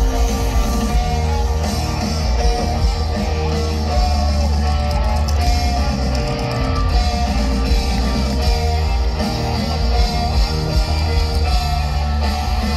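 Rock band playing a song's outro live through a stadium PA: electric guitar over bass and drums, with a heavy, steady low end.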